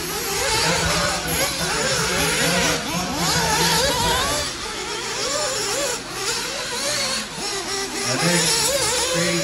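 Radio-controlled off-road race buggies running on a dirt track, their motors revving up and down in quick rising and falling whines, with a steady low hum underneath.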